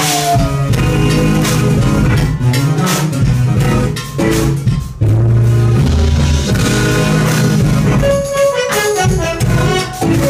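Jazz-fusion band playing live, electric guitar over drum kit and bass. There is a short drop just after four seconds, then heavy low bass notes come in.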